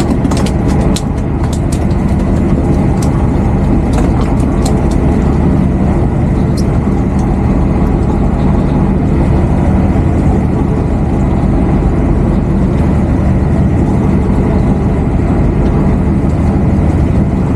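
Steady, loud drone of a fishing boat's engine running, with a few sharp clicks in the first five seconds.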